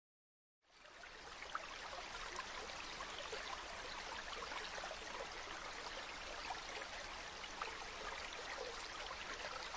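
Steady running-water sound, like a flowing stream, fading in about a second in and holding even.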